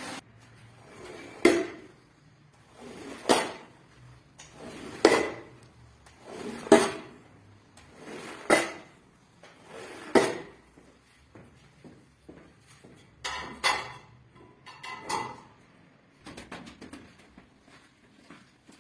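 A rug being worked on during cleaning: six regular strokes, each swelling into a sharp slap, about one every second and three quarters. A few lighter knocks and faint taps follow near the end.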